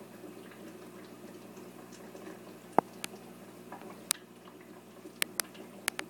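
Steady bubbling and low hum from an aquarium's air line, with six sharp clicks in the second half, the loudest about three seconds in.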